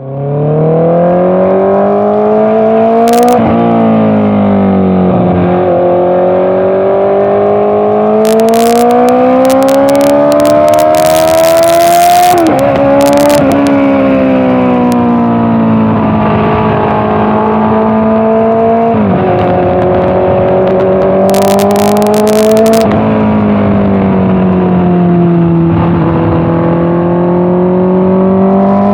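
Honda CBR650R's inline-four engine through an Orion aftermarket exhaust, heard on board while riding: the engine note climbs under acceleration and drops sharply at each gear change or throttle-off, several times over. Clusters of sharp crackles now and then.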